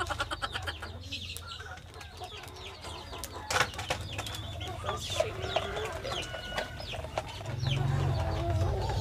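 Chickens clucking in a cage close by, with small clicks and crinkles from a foil sachet being handled. A low hum starts near the end and is the loudest sound.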